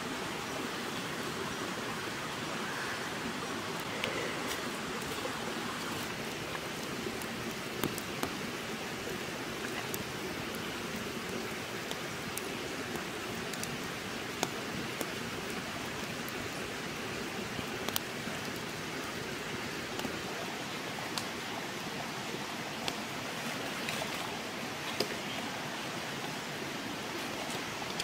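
Wood fire burning under a fish grilling on a bamboo rack: a steady hiss with scattered sharp crackling pops every few seconds.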